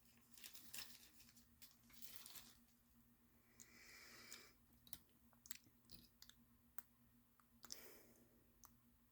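Faint crinkling and scattered light clicks from handling plastic packaging of diecast toy cars, coming and going in short patches.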